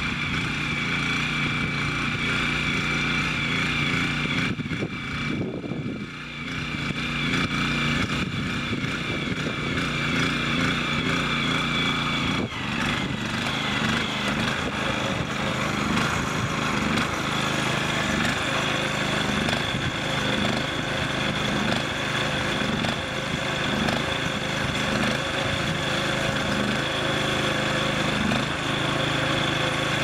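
Small engine of a Mametora MC 185 SB two-wheeled walk-behind tractor running steadily while it pulls a reversible plough through garden soil. About twelve seconds in, the engine suddenly sounds closer and fuller.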